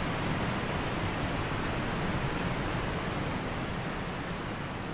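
Steady rushing roar of Ban Gioc Waterfall, a dense even noise of falling water.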